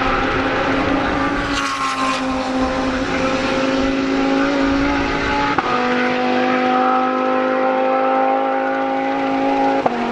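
GT3 race car accelerating at full throttle, its engine note climbing steadily between two quick upshifts, one about halfway through and one near the end.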